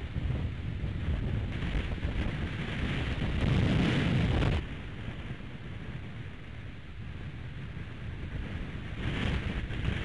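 Wind buffeting the nest-cam microphone in gusts, with a strong gust about three to four and a half seconds in that stops abruptly.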